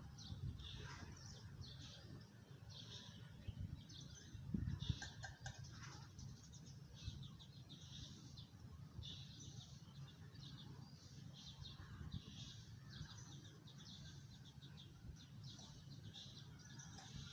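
Small birds chirping, short rapid trills repeating every second or so, faint over a low steady rumble with a couple of soft thumps about five seconds in.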